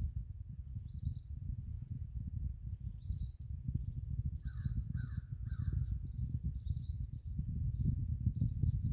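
A crow cawing three times in quick succession about halfway through, over a small bird's short high chirp repeating every second or two. A steady low rumble lies underneath.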